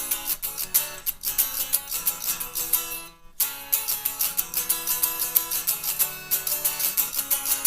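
Guitar strumming chords in a steady rhythm, with a brief break about three seconds in.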